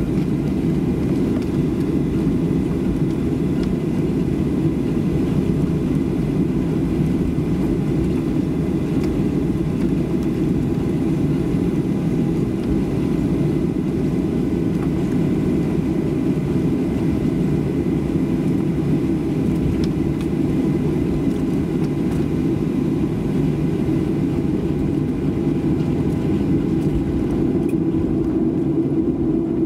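Inside the cabin of a Boeing 737-700 taxiing, heard from a rear seat: a steady low drone from its CFM56-7B turbofans at taxi power, with faint steady whining tones above it.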